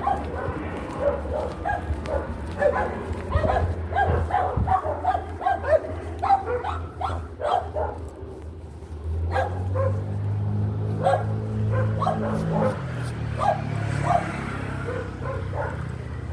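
Small dogs barking and yipping in quick, repeated short calls, thinning out after the first half. A low steady hum comes in about halfway through.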